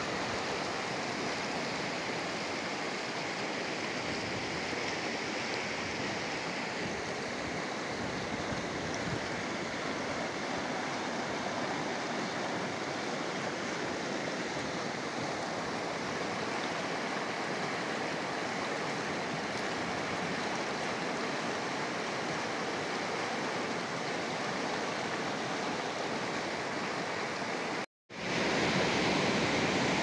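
Fast mountain river rushing over rocks and shallow rapids, a steady sound of running water. Near the end it cuts out for a moment and comes back a little louder.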